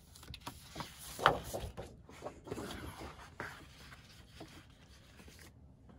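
Sheets of scrapbook paper rustling and sliding as they are handled and turned over, with one louder rustle a little over a second in.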